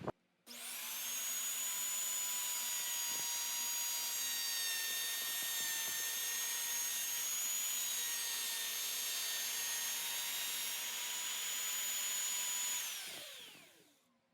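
Electric power tool motor switched on, running at a steady high whine for about twelve seconds, then switched off and spinning down with falling pitch.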